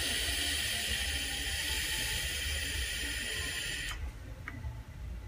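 A long drag on a vape tank atomizer fired from an e-hookah handle: a steady hiss of air drawn through the tank as the coil fires. It cuts off suddenly about four seconds in.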